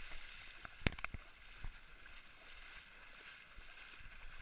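Shallow sea water splashing and sloshing right at the microphone, with a sharp knock about a second in and a few lighter clicks after it.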